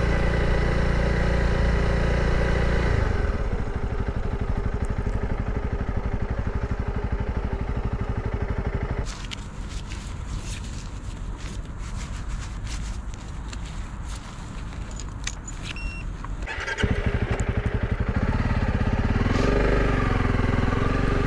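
Honda CRF300 Rally's single-cylinder engine running: it idles steadily while stopped, with rustling and clicks from handling gloves for several seconds in the middle. Near the end it revs up as the bike pulls away.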